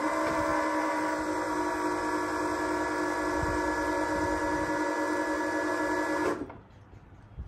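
Battery-powered hydraulic pump motor of a Big Joe walk-behind forklift running steadily as it raises an engine on a pallet, a steady electric whine that stops suddenly about six seconds in.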